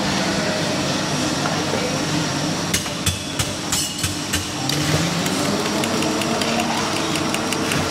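A quick run of about six sharp knocks, hard object on hard object, over steady background noise, then fast, even ticking starting near the end.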